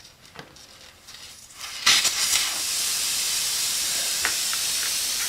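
Air hissing steadily out of a puncture in a car tire's tread, starting suddenly about two seconds in as the screw is pulled out; a few light clicks before it.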